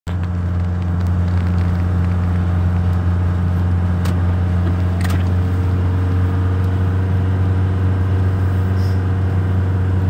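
A car heard from inside the cabin while driving on a snow-covered road: engine and tyres make a steady low drone, with a few faint clicks.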